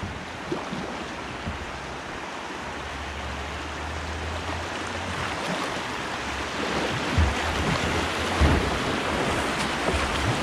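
Rushing river water, growing steadily louder, with wind rumbling on the microphone and two dull knocks in the second half.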